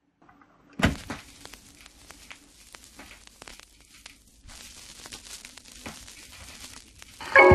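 A turntable stylus set down on a vinyl record with a single thump about a second in, then the record's surface noise: scattered crackles and pops as the needle runs in the lead-in groove. Just before the end, music with mallet-like tones starts playing from the record.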